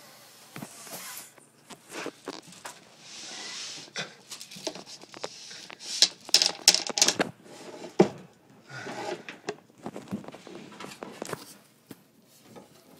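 Irregular knocking, scraping and rustling in a cramped space under a floor, with a dense run of sharp clicks and knocks about six to seven seconds in and one hard knock at about eight seconds.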